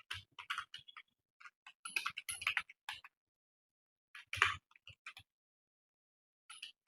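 Typing on a computer keyboard: quick runs of key clicks broken by pauses of a second or so, with one heavier keystroke a little after four seconds in.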